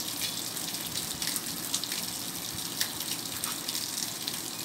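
A steady, water-like rushing noise, with a few faint clicks as the pump's metal seal parts are handled.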